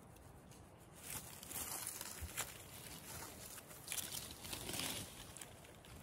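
Gloved hands rustling and scraping through moss and forest-floor litter while working a matsutake mushroom loose from the ground, with a few small sharp clicks among the rustling.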